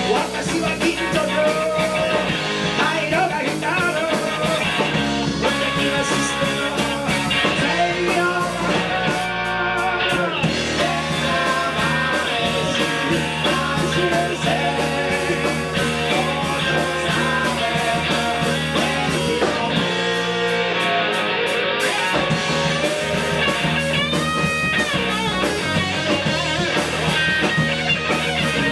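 Live rock band playing through amplifiers: electric guitars over drums and bass, with notes that bend and slide in pitch about ten seconds in and again near the end.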